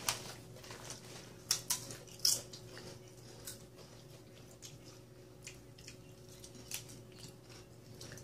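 People biting into and chewing wavy-cut potato chips: sharp, crisp crunches, loudest a couple of seconds in, then fewer and quieter chews.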